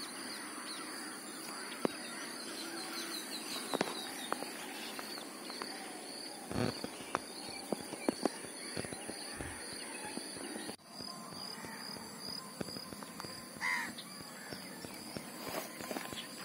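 Lakeside ambience: a steady high insect drone with a repeating faint chirp, and birds calling now and then. Scattered small splashes and knocks come from a fish being unhooked and handled in shallow water.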